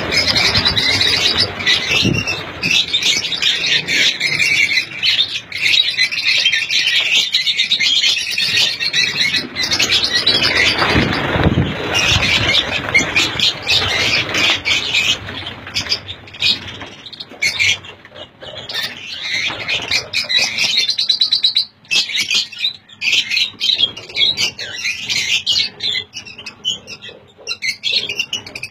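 A colony of lovebirds chirping and chattering: many high-pitched calls overlap in a continuous, busy din, thinning a little midway and building again near the end.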